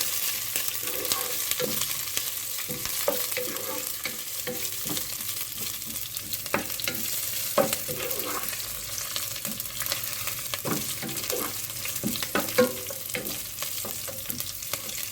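Sliced onions and green chillies sizzling in hot oil in a pot, stirred, with the utensil scraping and knocking against the pot at irregular moments. The onions are frying towards golden brown.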